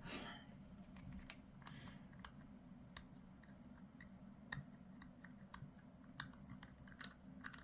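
Faint, irregular light clicks and taps from small plastic miniature parts being handled, over a low steady hum.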